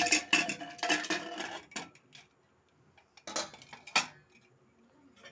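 Aluminium pressure cooker being opened: metal clinks as the whistle weight is lifted off the vent and the lid is worked free of the pot. The clatter runs for about two seconds, then after a short pause comes a second cluster of clanks ending in a sharp knock about four seconds in.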